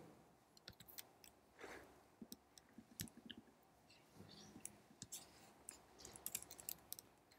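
Near silence: room tone with a few faint, scattered computer clicks.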